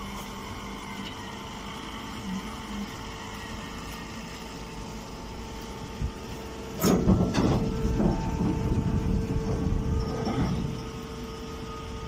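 Electric hydraulic straw-bagging baler running with a steady hum. About seven seconds in, a louder stretch of knocking and rustling lasts about three seconds while the machine's tone strengthens, as a compressed straw bale is pushed out into the bag.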